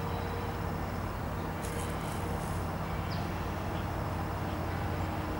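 Steady low rumble of a distant diesel locomotive, with a few short bird chirps about two and three seconds in.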